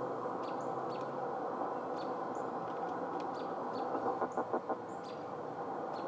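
Steady band-noise hiss from the speaker of an MFJ-9420 20-meter transceiver, with a quick run of pulses about four seconds in. Birds chirp faintly.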